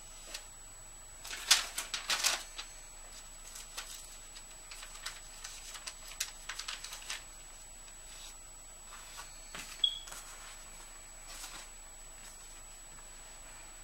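Sheets of paper, letters and cards rustling and flapping as they are picked up and sorted by hand, in irregular handfuls, loudest about a second and a half to two and a half seconds in.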